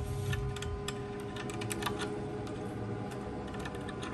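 Small irregular clicks and ticks of a stainless gas line and its fitting nut being handled and threaded on by hand onto a recovery compressor's cylinder head, over a faint steady hum.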